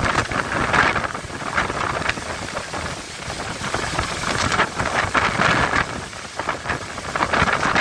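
Stormy weather: rain and gusting wind, with wind rumbling on the microphone; the noise surges and eases every second or two.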